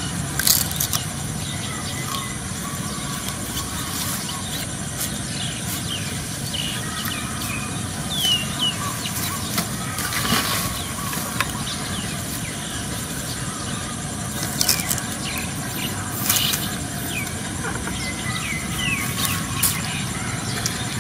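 Young macaque giving short, high, falling squeaks now and then over a steady outdoor background, with a few brief sharp knocks.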